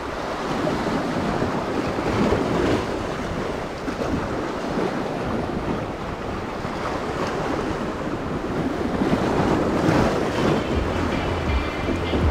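Sea surf washing over shoreline rocks, swelling and falling, with wind buffeting the microphone.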